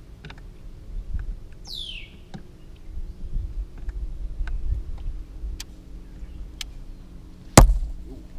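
Rod and reel being worked on a bass boat's front deck, with low rumble from wind on the microphone and scattered light ticks. A single sharp knock, the loudest sound, comes near the end as the rod is cast. A single falling whistle sounds about two seconds in.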